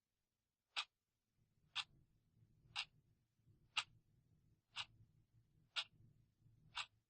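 Clock ticking once a second, sharp and evenly spaced, with a faint low hum underneath from about a second and a half in.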